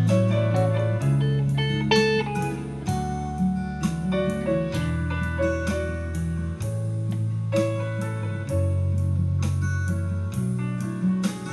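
Electric guitar solo on a Telecaster-style guitar, picked single notes and bends in a slow ballad, over a bass line that changes every couple of seconds and a steady beat.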